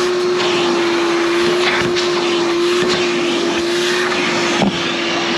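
Vacuum cleaner running steadily with a constant whine, sucking dust out of the inside of a gas furnace; a short knock about four and a half seconds in.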